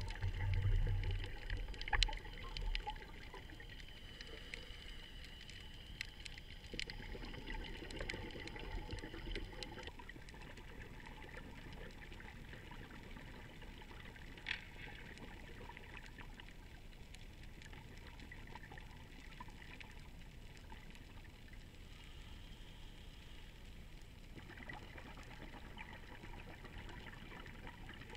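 Underwater sound picked up by an action camera in a sealed housing: a steady muffled hiss with scattered sharp clicks and crackles. A low rumble of water noise is loudest in the first few seconds.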